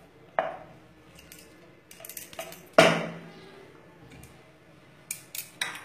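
A spatula knocking and scraping against a pan of cooked rice as a hollow is dug in the middle: a few sharp knocks, the loudest nearly three seconds in, with clusters of lighter clicks around it and near the end.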